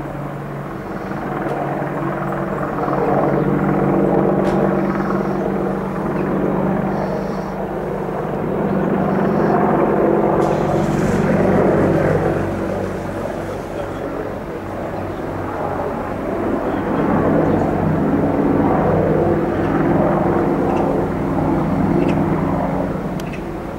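Apache attack helicopter flying overhead: a steady drone with a fast low rotor pulsing that swells and fades as it circles. The jet engines of a Boeing 747 on approach to land blend in during the later part.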